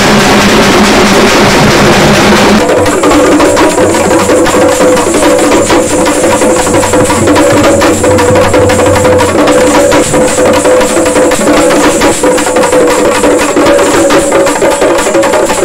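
Loud festival drumming: a crowd of dappu frame drums beaten hard and fast. About two and a half seconds in, the sound changes abruptly to a small group of strap-hung hand drums struck in a rapid, even rhythm.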